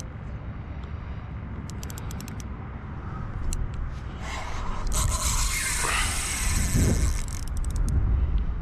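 Wind buffeting the microphone with a steady low rumble, broken by a quick run of clicks about two seconds in and, midway, a few seconds of rushing, scraping hiss.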